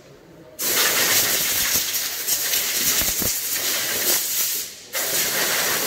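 Compressed-air blow gun blasting air over a car's engine bay: a loud steady hiss that starts about half a second in, breaks off briefly near five seconds, then starts again.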